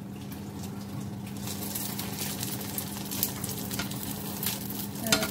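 Beaten egg sizzling in olive oil in a non-stick frying pan, with crackles and a metal slotted turner scraping the pan as the egg is lifted and folded over. A faint steady low hum runs underneath.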